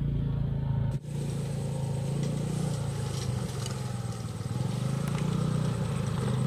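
A motor running steadily at an even pitch, with a brief drop in the sound about a second in.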